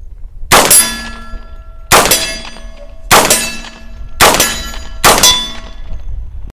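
Five shots from a direct-blowback 10mm Auto AR-15 carbine, about one every second. Each shot is followed a split second later by a clang of a steel target that rings on briefly. The sound cuts off suddenly near the end.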